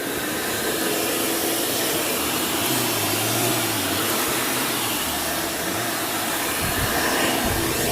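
Hoover commercial top-fill upright vacuum cleaner running steadily at full power, its motor a loud even rushing whine with a low hum underneath, as it is pushed over a rug.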